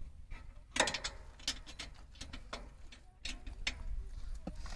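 Irregular metallic clicks and clinks of sprayer parts being handled and worked on, over a low steady rumble.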